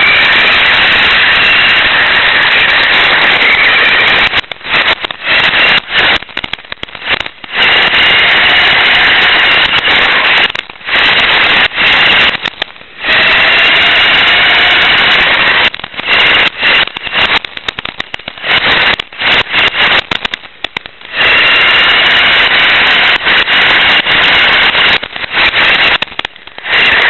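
Radio-controlled motorcycle running, heard through its shaking onboard camera: a loud rattling noise with a motor whine that rises and falls in pitch. The sound cuts out and comes back again and again in short, irregular gaps.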